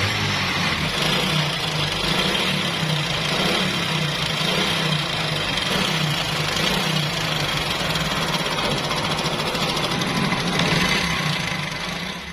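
Honda CD 70's single-cylinder four-stroke engine idling steadily with heavy timing-chain noise: the timing chain is loose. The sound fades out near the end.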